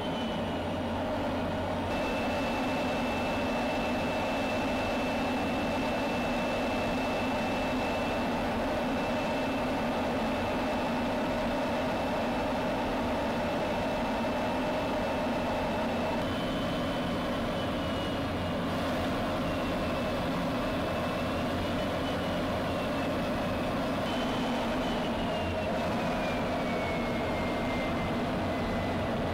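F-16 fighter in flight heard from on board: a steady rush of jet engine and air noise with a thin high whine on top. The whine holds one pitch for the first half, then wavers up and down.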